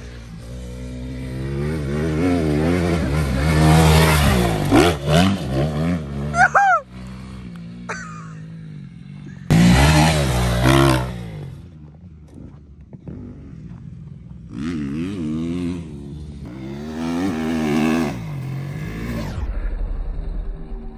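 Motocross dirt bike engines revving up and backing off in several separate bursts, the sound changing abruptly from one short clip to the next.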